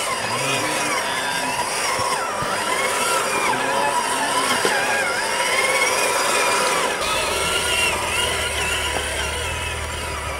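Electric motor and geared drivetrain of a scale RC crawler truck whining under load as it climbs a steep slope, the pitch wavering up and down with the throttle. A low rumble joins about seven seconds in.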